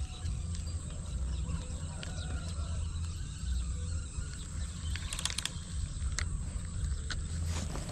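Wind buffeting the microphone as a steady low rumble, with a few short clicks and rattles from a spinning reel being handled and cranked, clustered about five to seven and a half seconds in.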